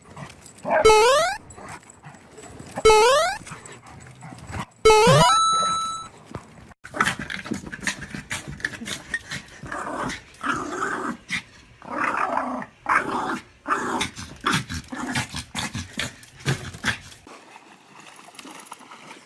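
Dog vocalising: three loud yelping barks that rise in pitch, about two seconds apart, then a long stretch of rough growling and snarling mixed with short barks.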